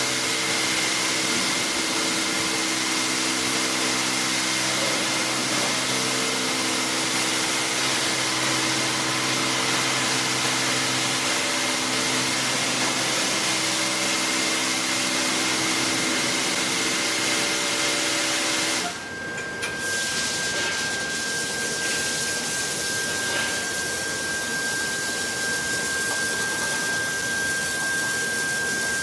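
LeisuWash touchless automatic car wash spraying a car through its swinging high-pressure arm: a steady loud hiss of water spray over a constant pump whine. About two-thirds of the way through the sound dips briefly, and the whine then carries on at a lower pitch.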